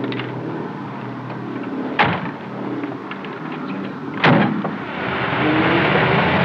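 Mercedes-Benz open staff car with its engine idling and two car doors slamming shut, about two seconds apart. Then the engine revs, rising in pitch, as the car pulls away.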